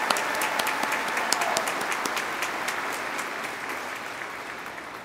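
A large audience applauding, the clapping slowly dying down.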